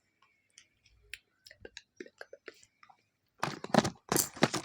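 Close-miked ASMR mouth sounds: scattered small wet clicks, then a louder run of smacking bursts about three and a half seconds in.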